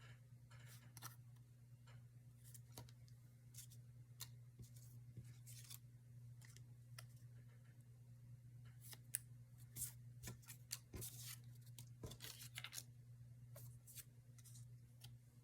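Faint scattered clicks and rustles of hands handling paper and craft materials, over a steady low hum.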